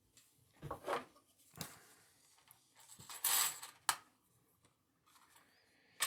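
Small metal padlock parts clinking and knocking as the lock is taken apart by hand, with a louder scraping rattle a little past halfway and a sharp click just after it.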